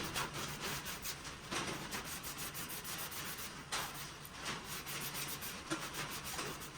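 Steel blade of a Schrade Old Timer 152OT Sharp Finger knife being rubbed by hand to clean and shine it: a steady run of quick back-and-forth scrubbing strokes.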